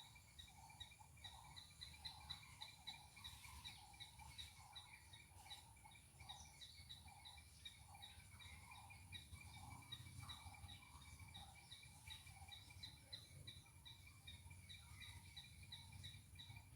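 Palm squirrel chattering: a faint, steady run of short high chirps, about three a second, over low background rumble.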